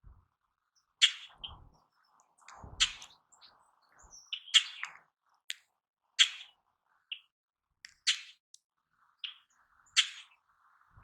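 Birds calling: a string of short, sharp, high calls about every second or so, with a few faint low thuds in the first three seconds.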